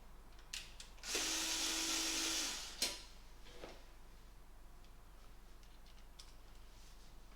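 Power drill-driver running for about a second and a half as it drives a screw to fix a mounting bracket, with a sharp click just after it stops.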